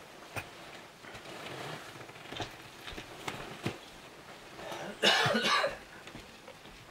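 A person coughing once, loud and short, about five seconds in, over quiet room tone with a few faint clicks.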